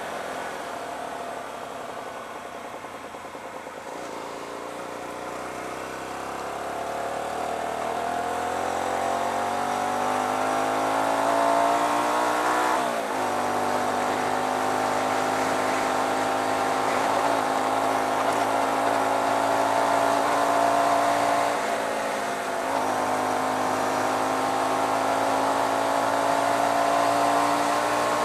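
Hyosung GT125R's 125 cc V-twin engine under way, pulling through the gears: its pitch dips slightly, then climbs steadily for several seconds. It drops sharply at a gear change about halfway through, climbs again, and drops at a second gear change several seconds before the end before climbing once more.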